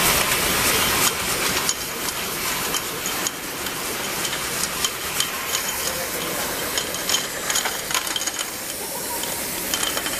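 Automatic labeling machine for round products running with a steady hiss, and frequent light clicks and taps as labeled plastic tubes drop down the exit chute into a plastic crate.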